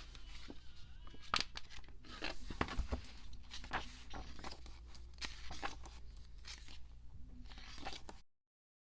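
Crinkling, rustling and tearing of album packaging being handled and opened, as many irregular short crackles and clicks over a low steady hum; it cuts off suddenly near the end.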